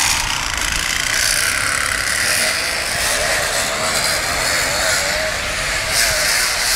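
Bicycle rigged to sound like a sports bike, being ridden with a steady, even noise.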